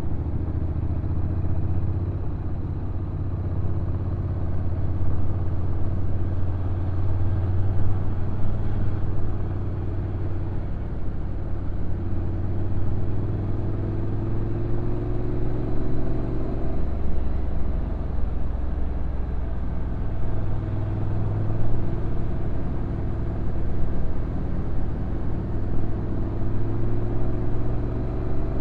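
Honda NC750X's parallel-twin engine running on a downhill ride. Its pitch climbs slowly and drops back several times as the speed and the DCT gearbox's gears change. There is steady wind and road noise throughout.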